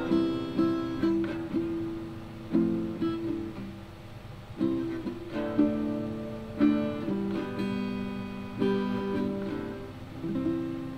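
Yamaha acoustic guitar playing chords, each strummed with a sharp attack and left to ring, about once a second.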